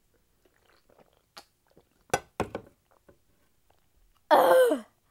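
Drinking from a can: soft swallowing clicks, then a few sharp knocks about two seconds in. Near the end comes a short, loud voiced "ahh" that falls in pitch.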